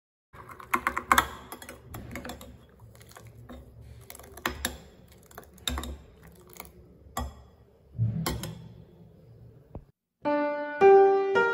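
Sharp taps and soft scraping of a knife and a silicone brush against a nonstick frying pan as butter is spread to grease it. Piano music starts near the end.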